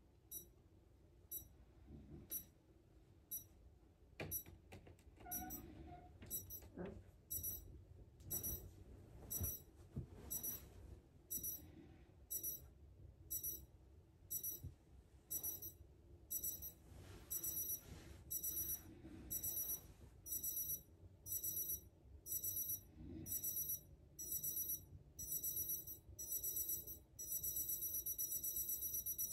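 Small electronic alarm clocks beeping, high-pitched. The beeps start at about one a second and thicken as more clocks join in, until near the end the beeping is almost continuous. A few soft knocks sound underneath.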